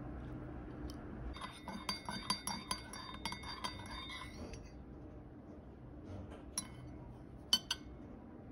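Metal teaspoon stirring tea in a porcelain teacup, rapid ringing clinks against the cup for about three seconds. Three single clinks of the spoon on the cup and saucer follow near the end.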